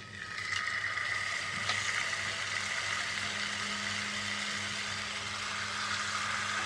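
Marinated chicken pieces laid with tongs into hot ghee in a heavy iron pan, sizzling as they hit the fat. The sizzle starts sharply and then holds steady, over a low steady hum.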